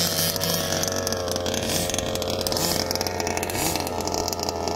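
Small two-stroke petrol engines of large-scale RC cars idling steadily. One engine gives a short throttle blip about three and a half seconds in.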